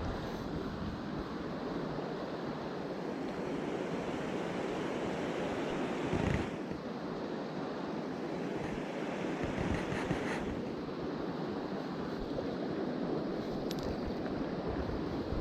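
Steady rush of flowing mountain-stream water, with a brief louder knock about six seconds in.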